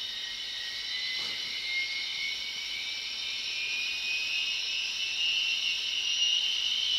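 Loc-Sound DCC sound decoder in an HO scale Union Pacific GTEL 'Big Blow' gas-turbine model playing its turbine sound, a steady jet-like whine that rises slowly in pitch and grows louder.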